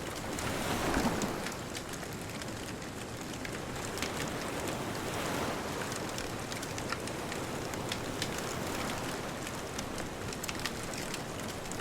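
Wood bonfire crackling with scattered sharp pops, over a steady wash of ocean surf that swells about a second in and again around five seconds in.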